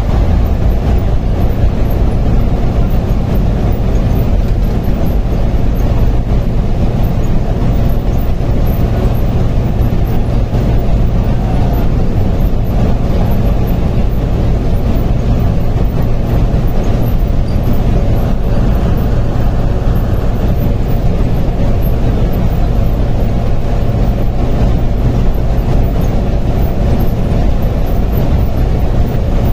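Steady low drone of a bus cruising at highway speed, its engine and tyre noise heard from inside the driver's cab.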